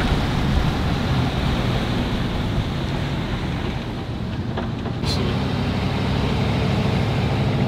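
Steady rumble of a vehicle driving, engine and road noise with a rush of wind.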